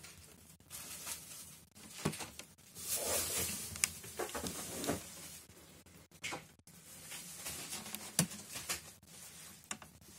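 A cat grooming itself: irregular wet licking and small clicks as it washes its paw and face, with soft rustles of the paper it sits on.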